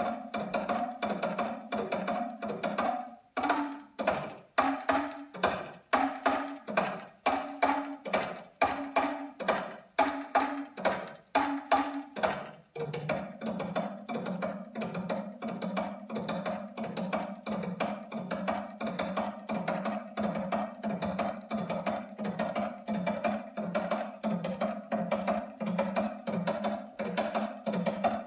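Talking drum played in fast stick strokes, its pitch stepping back and forth between a low and a higher note for the first dozen seconds, then settling into a quick, steady run on the low note.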